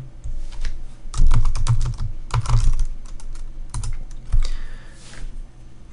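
Typing on a computer keyboard: a few irregular runs of quick keystroke clicks, stopping about four and a half seconds in.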